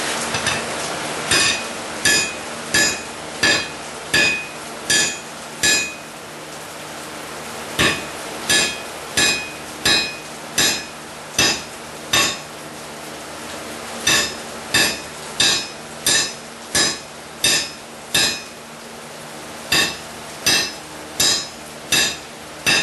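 Hand hammer striking metal on an anvil in four runs of five to eight ringing blows, about one and a half a second, with short pauses between. The blows are hammering down the corners of a hardy tool's shank so it fits the anvil's hardy hole.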